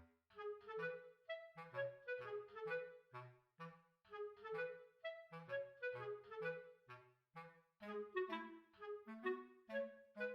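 Background music: a light, bouncy tune of short pitched notes over a bass line, with a woodwind-like lead.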